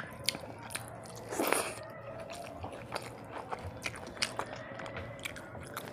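A person chewing a mouthful of food close to the microphone: soft, scattered mouth clicks and smacks, with one brief louder crunch about one and a half seconds in.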